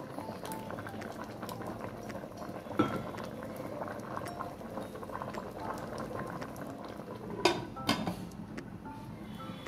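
Masoor dal with vegetables bubbling at a steady boil in an electric rice cooker's pot, stirred with a wooden spatula, with a sharp knock about three seconds in. Near the end the glass lid is set on the pot with two clinks.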